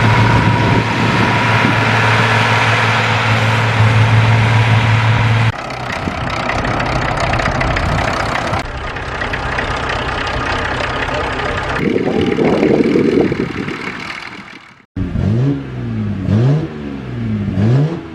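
A string of short clips of vintage tractor engines: an engine running steadily for the first five seconds or so, then other engines cutting in. Near the end an engine revs up and down several times.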